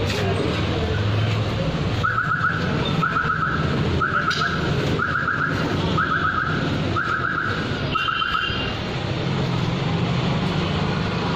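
An electronic warning beeper sounds seven short warbling beeps of the same pitch, about one a second, over a steady rumble of background noise.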